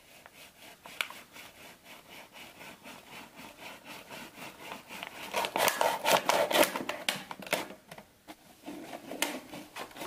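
Sickle blade sawing back and forth through the thin wall of a two-litre plastic bottle: quick, evenly repeated scraping strokes that grow louder around the middle, pause briefly near the end, then start again for a few strokes.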